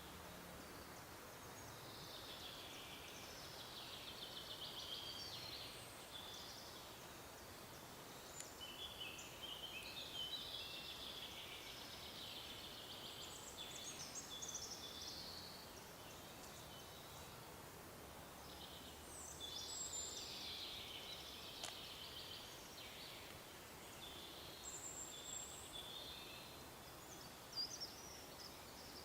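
Songbirds singing in high, warbling phrases of a few seconds each, with short pauses between them, over a faint steady hiss of forest ambience.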